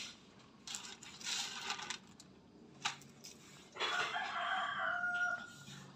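A rooster crows once, a drawn-out call starting about four seconds in and lasting about a second and a half. Before it come a few short noisy scraps and a single sharp click.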